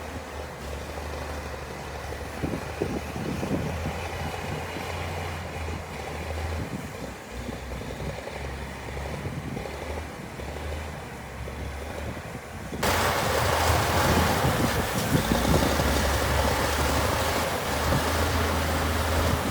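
A heavy construction machine's diesel engine running steadily with a low drone. About thirteen seconds in, the sound turns suddenly louder, with wind blowing hard on the microphone.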